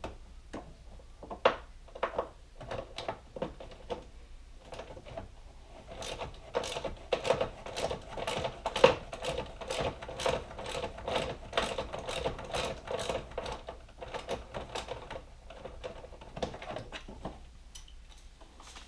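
Hand ratchet with a T45 Torx bit clicking as a bolt is turned. Scattered clicks come first, then a long, fast run of ratchet clicks through the middle. A few loose clicks and taps of tools follow near the end.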